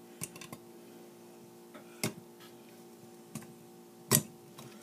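Pliers clicking against the metal ring nut of a potentiometer on a guitar distortion pedal as it is loosened: a few separate sharp clicks, the loudest about four seconds in, over a steady background hum.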